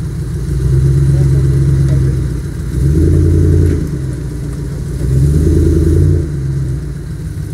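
Range Rover P38's 4.6-litre V8 with a custom exhaust, revving in three bursts of throttle and easing off between them as it crawls through deep mud ruts.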